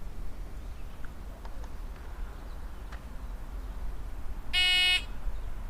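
Electronic shot timer's start beep: one short buzzing tone of about half a second, the signal to begin the string.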